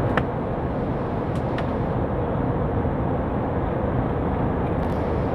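Steady drone of airplane cabin noise, the engines and rushing air heard from inside the passenger cabin, with a short click just after the start.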